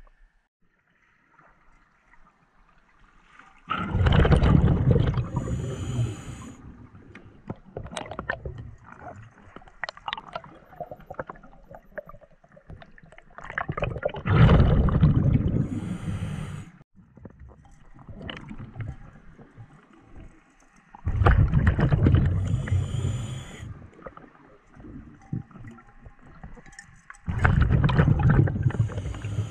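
Scuba diver breathing through a regulator underwater: four loud rushes of exhaled bubbles, each about two seconds long and six to seven seconds apart, each ending in a short hiss, with faint crackling between breaths.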